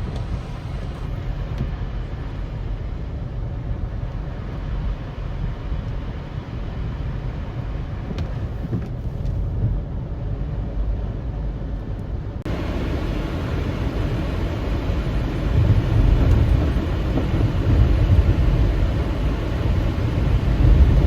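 Car driving: a steady low road and engine rumble. About twelve seconds in it changes abruptly to a fuller, hissier noise that grows louder toward the end.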